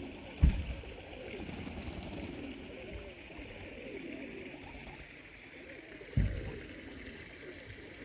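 Pigeons cooing softly and steadily, broken by two low thumps, about half a second in and about six seconds in.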